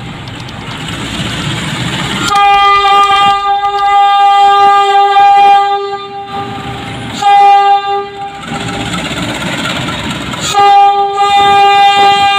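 PNR diesel locomotive DEL 919 approaching slowly, its engine rumble growing, then sounding its horn three times: a long blast about two seconds in, a short blast, and another long blast near the end that is still going.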